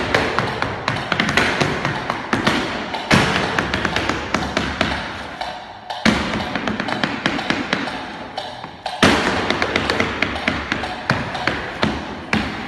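Flamenco dancer's heeled shoes striking the stage floor in fast footwork, a dense run of sharp taps and heavier stamps.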